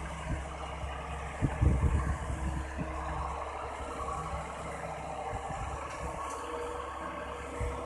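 Dongfeng dump truck's diesel engine running steadily, with a cluster of low thumps about one and a half to two and a half seconds in.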